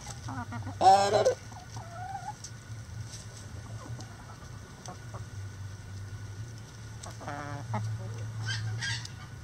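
Chickens clucking, with one loud call about a second in, a shorter sliding call just after it, and a few more calls near the end. A steady low hum runs underneath.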